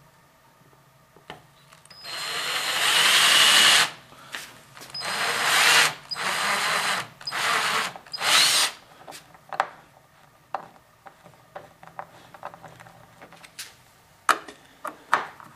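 Power drill running in five short bursts, boring countersunk pilot holes for screws in wood; the first burst is the longest. It is followed by scattered light clicks and taps.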